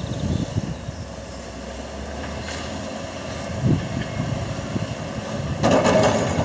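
Diesel engines of heavy earthmoving machines (excavator, wheel loader, dozer) running steadily, with wind buffeting the microphone. A short loud rush of noise comes near the end.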